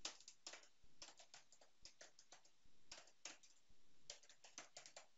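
Faint typing on a computer keyboard: irregular single keystrokes, with a quicker run of keystrokes about four seconds in.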